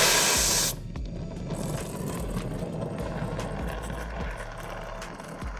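Handheld gas torch heating a seized engine crossmember bolt to break it free: a loud burst of hissing for under a second at the start, then the flame burning with a steady rush.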